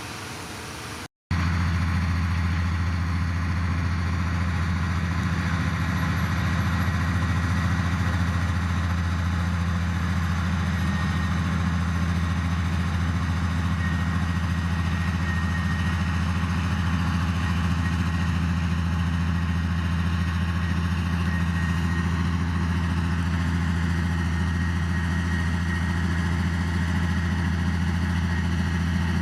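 Heavy diesel engine of earthmoving machinery running steadily at an even, low pitch, with no revving. It cuts in loudly after a brief gap about a second in.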